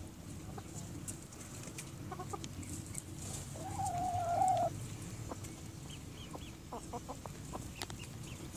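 Hens clucking softly as they feed, with one long, drawn-out hen call about halfway through that is the loudest sound, and a few short clicks later on.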